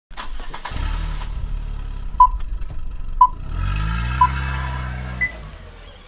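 Car engine sound effect: an engine starts and idles, then revs up about three and a half seconds in and dies away. Over it runs a race-start countdown of three beeps a second apart, followed by a higher-pitched beep.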